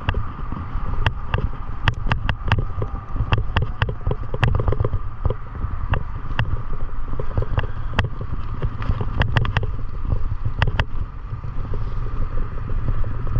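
Wind buffeting the microphone while riding a mountain bike, a steady low rumble with a constant hum over it and many scattered sharp clicks and rattles at irregular times.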